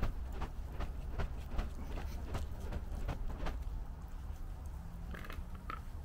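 Small campfire of twigs and embers crackling under a banana, irregular sharp pops a few per second that thin out after about three and a half seconds. A short higher-pitched hiss or squeak comes about five seconds in.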